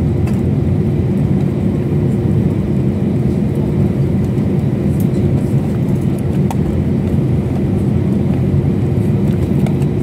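Steady drone of an airliner heard from inside the passenger cabin: engine and airflow noise, deep and even, with a constant hum.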